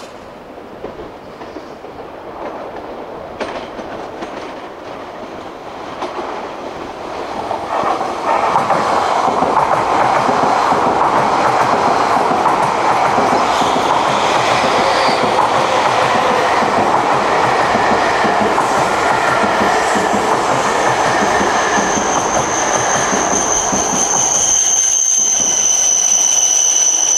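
E5 series Shinkansen train pulling into the station: its running noise grows over the first eight seconds as the cars come alongside, then holds at full level. Near the end a steady high squeal joins in as the train brakes toward a stop.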